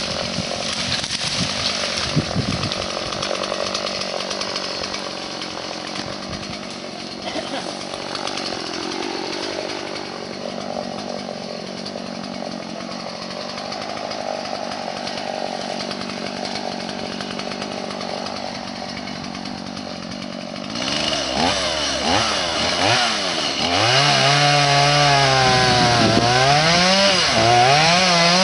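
Stihl MS 180 two-stroke chainsaw running, fainter at first. About three quarters of the way in it becomes suddenly louder and revs up and down repeatedly.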